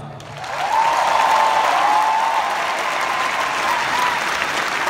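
Large arena crowd applauding and cheering, swelling about a second in, greeting a band member just introduced by name.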